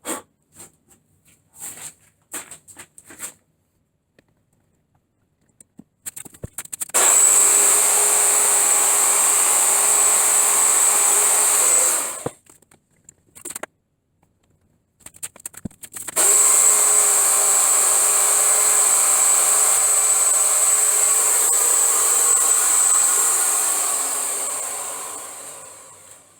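Handheld electric router, likely the Ryobi 8.5 amp router, running at full speed with a high whine, twice: the first run stops sharply, and the second winds down slowly at the end after switch-off. A few light clicks and knocks of handling come before it.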